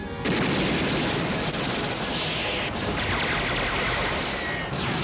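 Rapid, sustained machine-gun fire from the Batwing's rotary Gatling guns, a film sound effect. It starts abruptly about a third of a second in, with a short break near the middle.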